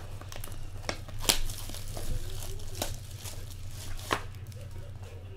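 Plastic shrink wrap being cut and torn off a Topps Triple Threads card box, crinkling, with several sharp tearing snaps, the loudest about a second in.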